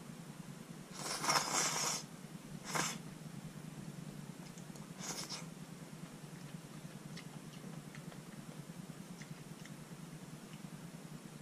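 A person slurping wide glass noodles and broth of malatang: a long slurp about a second in, a short one just after, and a fainter one about five seconds in, followed by a few faint small clicks over a steady low hum.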